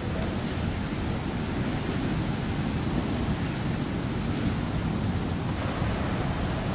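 Steady wind noise rumbling on the microphone, mixed with the wash of surf.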